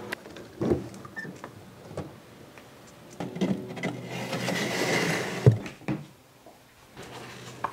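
Metal wire smoker racks knocking and scraping as they are handled and slid into a smoker, with a few sharp knocks, the loudest about five and a half seconds in, and a stretch of rustling in between. A faint low steady hum runs underneath.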